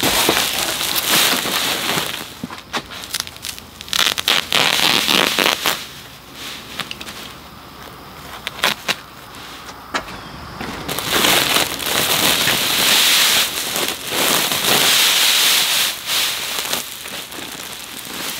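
Grass seed (perennial ryegrass and Kentucky bluegrass mix) pouring out of a 50 lb bag into a plastic spreader hopper, a steady grainy hiss. It comes in several pours, the longest about 11 s in, with crackling rustles and clicks from the bag being handled between them.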